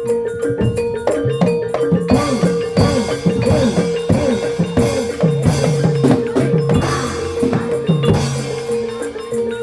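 Live barongan accompaniment music, Javanese gamelan style, with busy drumming whose strokes bend in pitch over a steady held tone. About two seconds in it becomes fuller and busier.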